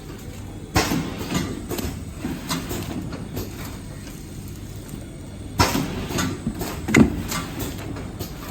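Tea box packaging machine running with a steady hum. Two bursts of clicking and clattering come about five seconds apart, a little under a second in and again at about five and a half seconds, as it goes through its working cycle.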